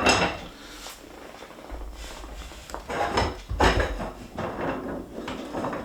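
Rustling, shuffling and a few light knocks of someone fumbling to pick up a dropped drumstick, with a low rumble of movement in the middle.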